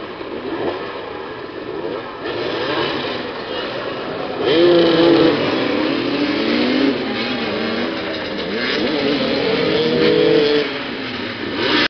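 Several motoball motorcycles revving and accelerating around the pitch, their engine notes rising and falling over one another. They grow louder about four and a half seconds in.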